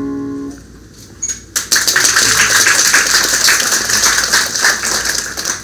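Acoustic guitar's last chord ringing out and stopping, then a small audience clapping for about four seconds.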